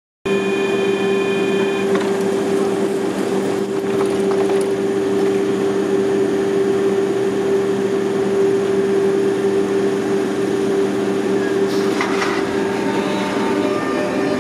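Double-deck MI2N electric multiple unit standing at the platform with a steady electrical hum from its onboard equipment. About two seconds in, a high steady tone stops with a clunk as the doors close. Around twelve seconds in comes a short burst of noise, then the traction motors start whining as the train begins to pull away.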